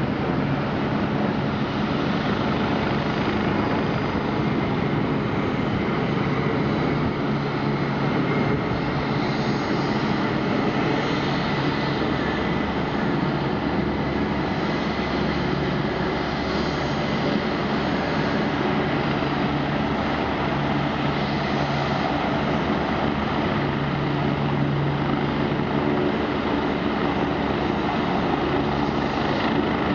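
AgustaWestland AW109 twin-turbine helicopter running, its engine and rotor noise holding steady without rising or falling.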